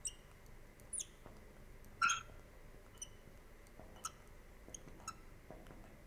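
Marker writing on a glass lightboard: a series of short, faint squeaks and taps, about one a second, the loudest about two seconds in.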